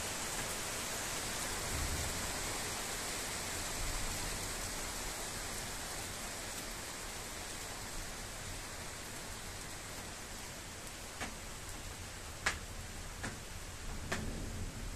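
Heavy rain falling with a steady hiss during a thunderstorm, with a few sharp clicks near the end.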